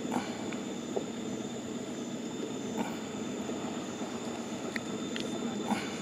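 Boat engine idling with a steady low rumble and a few faint knocks.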